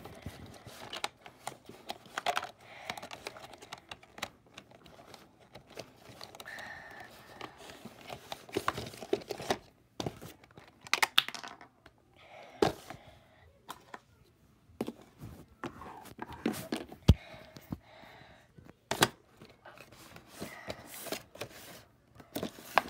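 A plastic dinosaur toy and its cardboard box being handled by hand: irregular clicks and knocks with rustling in between, and a few sharper knocks on the tabletop.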